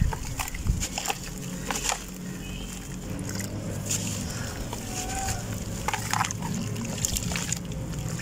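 Soft, dry red dirt crumbling by hand into a basin of water, with irregular splashes and sloshing as chunks drop in and the wet mud is squeezed under the water.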